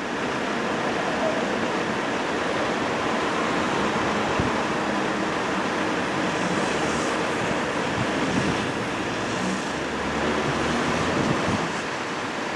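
Steady road traffic noise, a continuous rumble and hiss of passing vehicles without any siren or horn.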